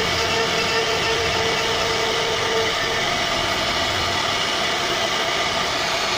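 CNC router spindle running as its fine carving bit cuts a relief pattern into a solid wood door panel: a steady whine over the noise of the cutting.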